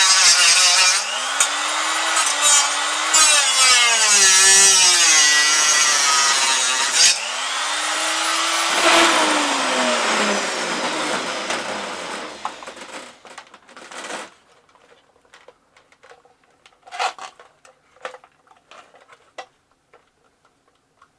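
Cut-off tool running at speed and cutting, with a harsh hiss over its whine; the pitch sags and recovers as it bears into the work. About seven seconds in the cutting stops, the tool winds up briefly again, then spins down with a falling whine over several seconds. Light clicks of parts being handled follow.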